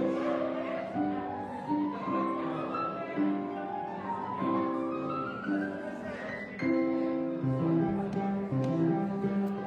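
Upright piano being played: repeated chords in the middle register while a run of notes climbs steadily higher over several seconds, with lower bass notes entering about seven seconds in.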